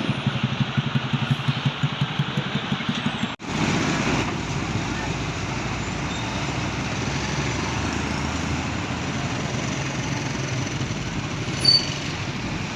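Road traffic: a vehicle engine running with a rapid low pulsing beat, cut off abruptly a few seconds in. Steady traffic noise of passing vehicles follows, with a short sharp high-pitched blip near the end.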